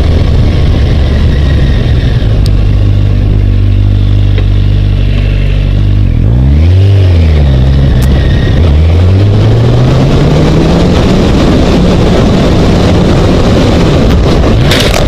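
Motorcycle engine running under way, with a rush of wind noise. About six seconds in the revs rise and fall quickly, then climb steadily as the bike accelerates. Near the end, sharp cracks of a collision begin.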